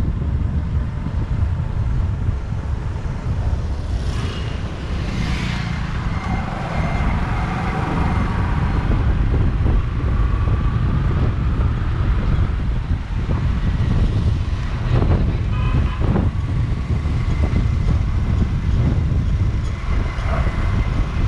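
Motorcycle riding along a town road, heard from a helmet-mounted action camera: steady wind rush on the microphone over the running engine, with other traffic passing.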